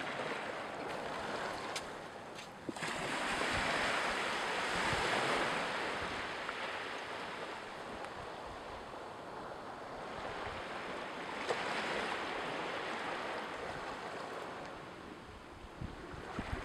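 Sea waves washing on the shore, a steady noisy wash that swells twice and eases back in slow surges.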